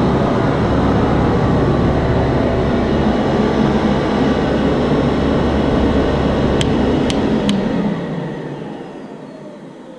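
Advance ET 700 portable carpet extractor's vacuum motor running steadily, then three sharp clicks about seven seconds in and the motor spinning down with a falling whine near the end.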